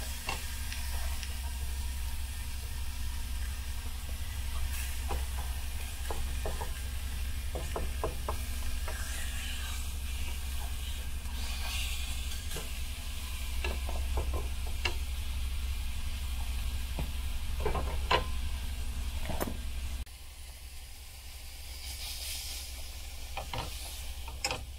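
Steak and chopped onions sizzling steadily in a hot frying pan, with scattered clicks and scrapes of a wooden spatula pressing and turning the meat. A low steady hum runs underneath, and the level drops abruptly about twenty seconds in.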